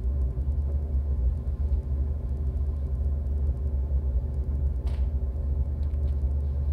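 Low, steady droning rumble from an electronic stage sound score, with several steady tones held together above it. A faint click comes about five seconds in.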